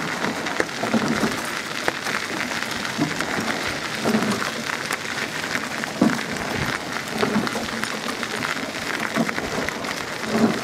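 Steady splashing water noise from a rowing eight's oars, with a soft knock recurring about every one and a half to two seconds in time with the strokes.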